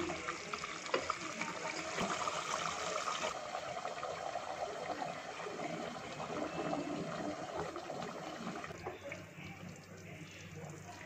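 Chicken curry gravy simmering and bubbling in a pot, a steady watery crackle, with a wooden spoon stirring through it at the start. It gets quieter about nine seconds in.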